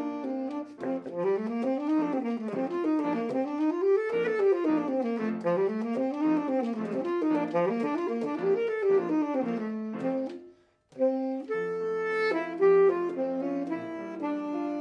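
Tenor saxophone played solo: fast runs of notes sweeping up and down, a brief stop about ten and a half seconds in, then steadier held and stepping notes.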